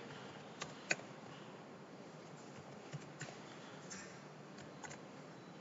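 A few faint, scattered keystrokes on a computer keyboard, about half a dozen single clicks spread over a few seconds, over a low room hiss.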